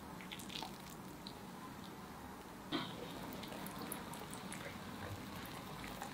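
Faint, soft sounds of a balloon whisk stirring glutinous rice flour and milk in a glass bowl, with small scattered clicks. There is one sharper knock a little under three seconds in.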